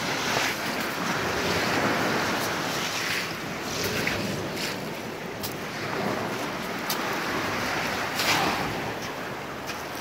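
Steady rushing of surf on a pebble beach, with wind on the microphone. Scattered sharp clicks of beach pebbles knock together as bare hands dig into the gravel.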